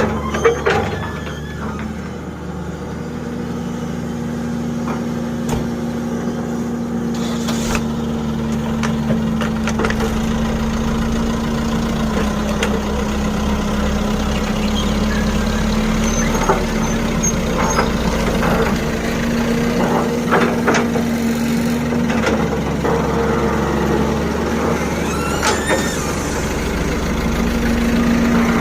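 Excavator's diesel engine running steadily as it digs and loads sand, its tone shifting slightly with the load, with scattered knocks and clanks from the work.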